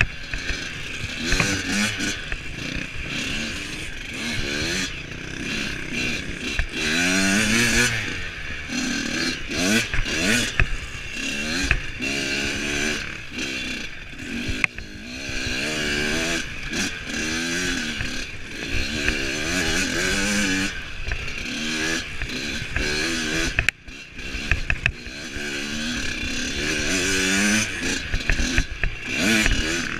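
Dirt bike engine being ridden hard on a trail, revving up and falling off over and over as the throttle is worked, about every second or two. The sound cuts out briefly about two-thirds of the way through.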